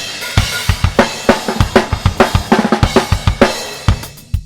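Isolated live-recorded drum kit track (kick, snare and cymbals) playing back through an equaliser under test, a DIY clone of the Calrec PQ1549. The beat is busy, with a run of quick hits in the middle.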